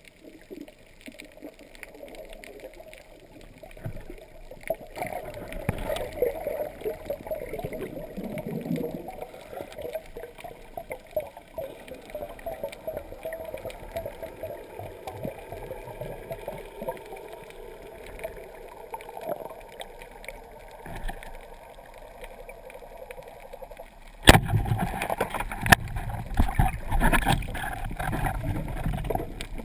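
Muffled underwater sound through a GoPro's waterproof housing mounted on a speargun: low gurgling and water movement. About 24 seconds in comes a sharp knock, then louder knocking and rattling as a gloved hand handles the gun.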